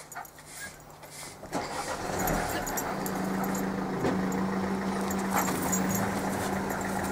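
A car engine starts about a second and a half in and then runs at a steady idle, a constant low hum.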